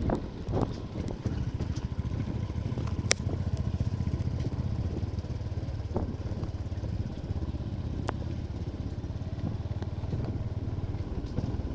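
Motorcycle engine running steadily at a low rumble, heard from on the moving bike as it rides a gravel road, with scattered sharp clicks and rattles, one louder click about three seconds in.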